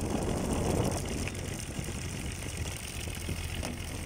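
Fishing boat's engine running steadily, a low hum under a hiss of wind and water.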